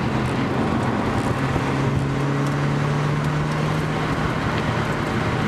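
Lotus Elise's four-cylinder engine heard from inside the cabin under acceleration on a race track, its steady note rising gradually in pitch, with road and wind noise underneath.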